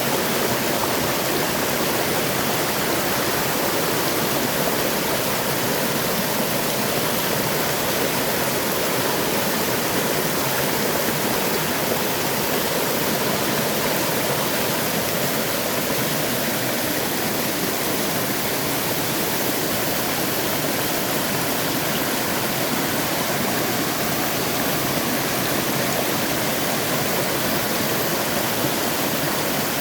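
Mountain stream rushing steadily over rocks, a continuous even wash of flowing water.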